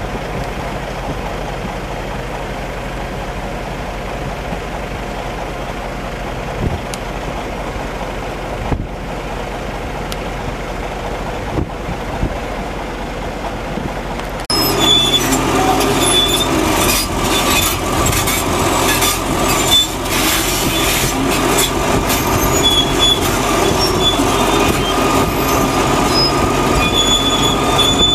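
Heavy diesel plant of a static mole plough cable-laying rig running steadily. About halfway through it becomes louder and closer, with short high-pitched metallic squeals and clanking over the engine.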